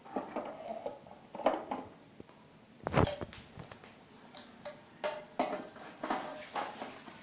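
Plastic juicer parts and a steel cup being handled and fitted together: irregular clinks and knocks, the sharpest about three seconds in, with no motor running.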